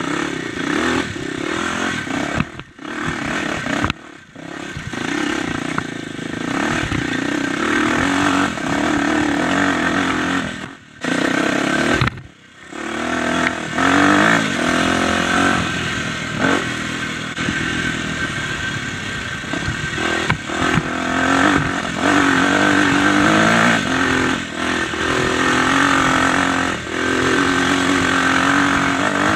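Dirt bike engine running under load while being ridden, revving up and down as the rider works the throttle, with a few brief drops in the first half where the throttle is shut off.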